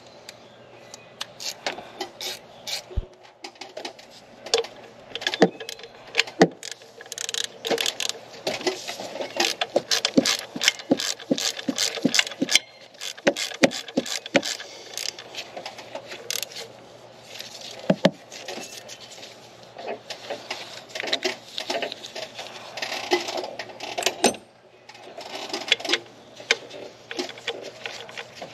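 Hand ratchet clicking in quick runs, with short pauses, as the power steering pump's mounting bolts are tightened.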